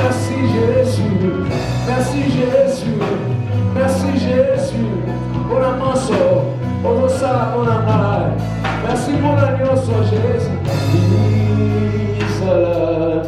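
Praise-and-worship music: singing over a bass line, guitar and regular percussion strikes.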